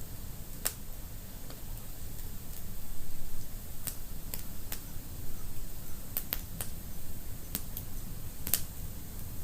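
Wood fire burning in a fireplace, crackling with about a dozen sharp, irregular pops and snaps over a low steady rumble of the flames, a cluster of pops coming about six seconds in.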